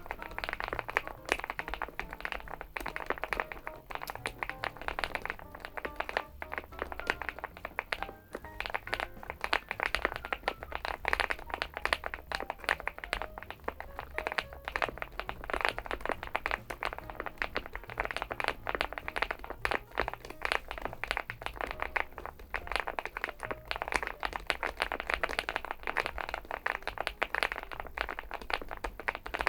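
Continuous fast typing on a Weikav Stars80, a gasket-mounted aluminium mechanical keyboard: a dense, unbroken run of keystrokes with the deep, rounded 'kotokoto' sound of its switches.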